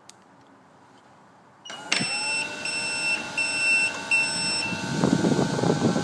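BGA rework station starting up after its heating cycle: a motor spins up with a steady whine, and the machine beeps in a broken high tone for about two seconds. Near the end a rushing of air grows louder as the vacuum pick-up lifts the chip off the board.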